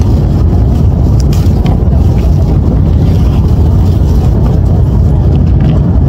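Steady loud rumble of an Airbus A330 airliner cabin, the engine and air noise heavy in the low end and pressing on the phone microphone, with a few faint crackles.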